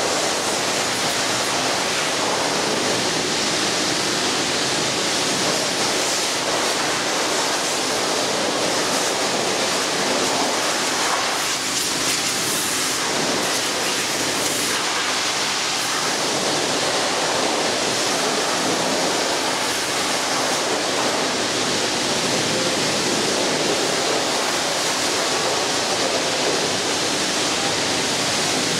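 Pressure washer spraying a high-pressure water jet onto a forklift: a loud, steady hiss of water that shifts slightly about halfway through as the spray moves.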